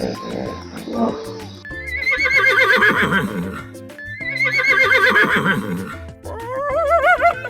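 Horse whinnying three times, each a long shaky call, over background music.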